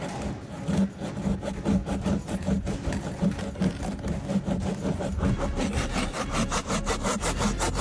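Hand saw cutting into the dry wood of a hollow tree trunk with repeated back-and-forth strokes. The strokes quicken in the last few seconds.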